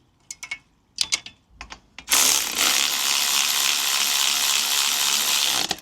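A few sharp metallic clicks of hand tools as an exhaust is fastened up. About two seconds in, a loud, steady hiss starts and runs for about three and a half seconds before cutting off suddenly.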